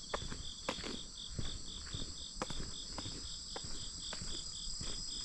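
Autumn insects singing in the grass: a steady high trill, with one insect chirping evenly about four times a second. Uneven footsteps can be heard underneath.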